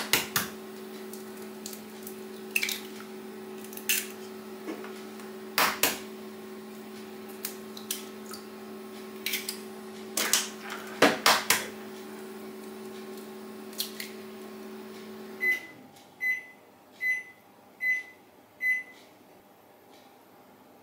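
Eggs being cracked open, a few sharp knocks of shell against a hard edge, over a steady appliance hum. About three-quarters of the way through the hum stops, followed by five short, evenly spaced beeps.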